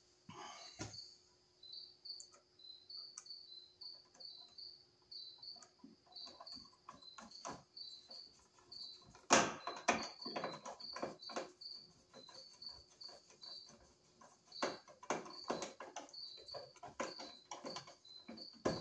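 Screwdriver clicks and scrapes as a wall switch is screwed down into its blue plastic electrical box, with a sharp knock about nine seconds in. Under it a cricket chirps steadily, about two chirps a second.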